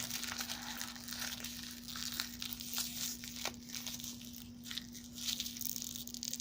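Crinkly plastic toy packaging being handled and pulled at, a dense run of small crackles that is busiest in the first half. A faint steady hum runs underneath.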